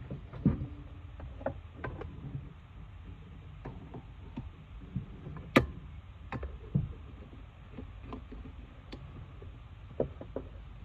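Irregular light clicks and knocks of hand tools and metal and plastic parts being handled while working on a coolant hose and thermostat housing, with one sharper click about halfway through.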